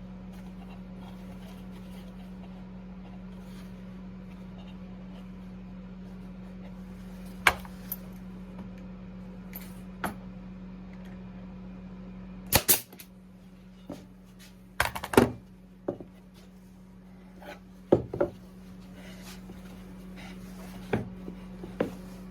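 Scattered knocks and clicks of wooden parts and hand tools being handled, loudest about halfway through, over a steady low hum.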